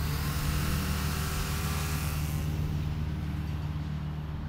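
Small electric RC plane's motor and propeller, a Volantex Sport Cub 500, at full power with a high whining buzz as it is launched. The sound drops away after about two and a half seconds as the plane flies off, leaving a steady low hum.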